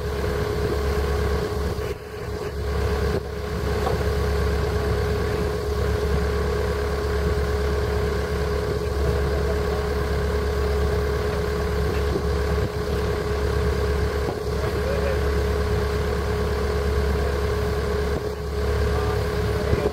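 A motor running steadily: a constant droning hum with a steady mid-pitched tone over it, unchanging throughout.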